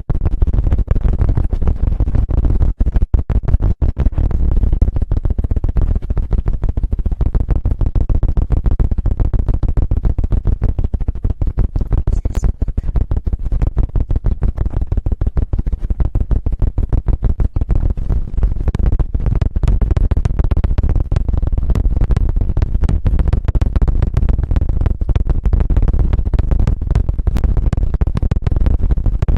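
ASMR 'helicopter' trigger: the microphone's ears rubbed and flapped very fast right against it, giving a rapid, continuous chopping flutter with heavy low rumble, like helicopter rotor blades. It breaks off briefly about three and four seconds in.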